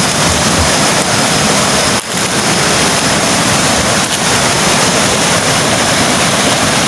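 Steady loud rush of falling water from a tall waterfall, heard from near its top, with a brief dip about two seconds in.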